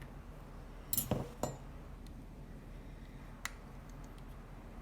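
Light clinks and taps of small hard objects being handled: three close together about a second in, then one sharp tick a little past three seconds.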